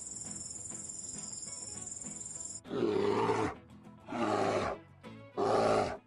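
Background music with a steady high-pitched buzz, then, about two and a half seconds in, a brown bear roars three times in quick succession, each roar under a second long and the last the shortest.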